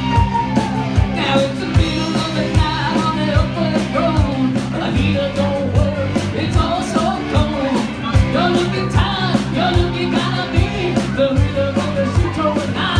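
Live rock band playing: a man singing into a microphone over drum kit and keyboard, with a steady beat.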